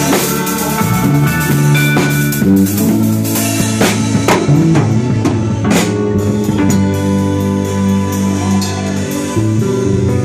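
Live gospel worship band music: drums keep a beat over steady held low notes.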